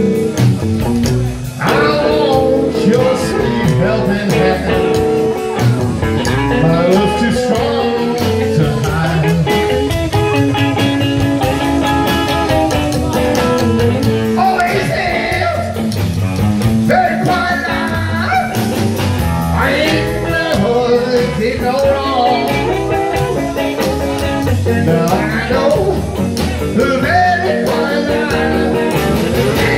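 Live blues and rock-and-roll band playing loudly, with electric guitar and a singer.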